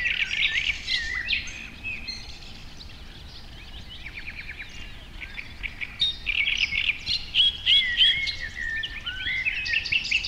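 Songbirds singing: a mix of quick chirps and warbling phrases from several birds, busiest at the start and again from about six seconds on.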